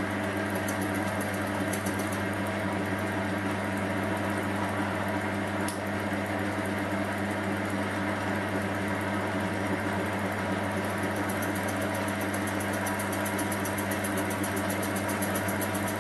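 Small metal lathe running steadily at about 450 RPM, its motor and gearing giving an even hum, while a high-speed-steel tool takes a fine cut on an aluminium die-grinder nose. A single click comes about six seconds in, and a faint fast ticking builds near the end.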